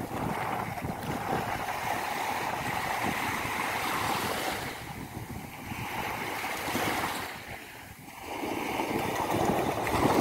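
Sea waves breaking and washing up a sandy beach in a steady surf wash. The wash eases about eight seconds in, then the next wave surges in near the end.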